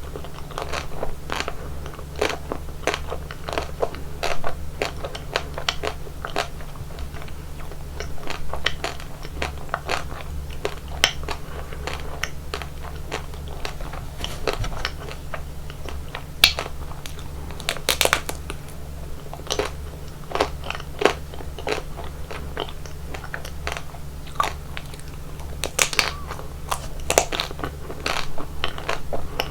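Close-miked eating of chocolate ice cream: crunchy bites and chewing, many crisp crackles throughout with a few louder crunches, over a steady low hum.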